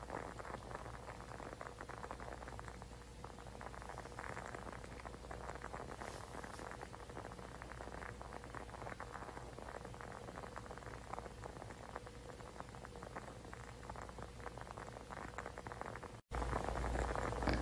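Soft snoring of a sleeping man, a faint crackly rattle over a steady low hum. Near the end it cuts off abruptly and a louder hum takes over.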